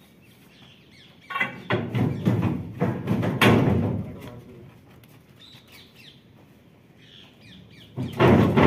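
Metal clattering and knocking from the sheet-metal body of a Swaraj 8100 combine harvester as a steel pry bar is worked against it. There is a run of knocks in the first half and another starting near the end, with a few faint bird chirps in the quiet stretch between.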